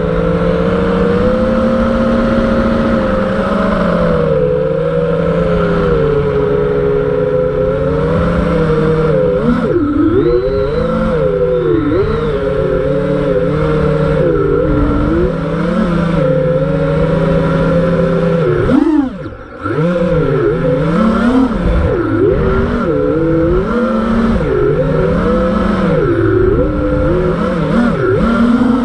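Motor buzz of a 5-inch FPV freestyle quadcopter with TBS Masterpilot 2400kV brushless motors, its pitch rising and falling with the throttle. About two-thirds of the way through the throttle is briefly cut, the sound drops away and dips in pitch, then it is punched back up.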